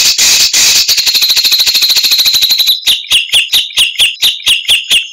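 Recorded songbird song: a loud, dense, rapid high trill, then a fast run of short notes, each dropping in pitch, about five a second.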